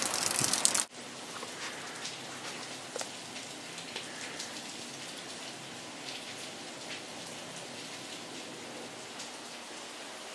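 Heavy rain pouring onto wet asphalt pavement, cutting off abruptly about a second in and giving way to a much quieter steady hiss with faint scattered ticks.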